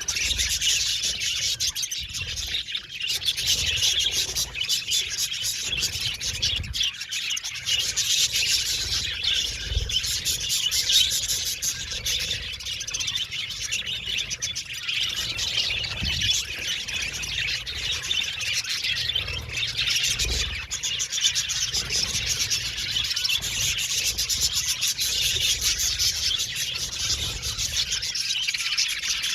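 A flock of budgerigars chattering and chirping all at once, a dense, continuous warble of many overlapping high calls.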